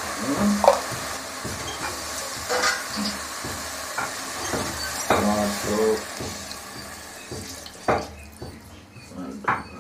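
Raw mutton pieces being stirred and handled in an aluminium pot, a hissy, stirring kitchen noise with scattered clinks, easing off after about seven seconds, followed by two sharper knocks against the pot.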